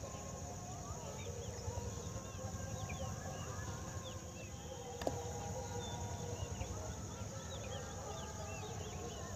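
Outdoor ambience of many small birds chirping in quick, scattered calls over a steady high insect hum and a low background rumble, with one sharp click about five seconds in.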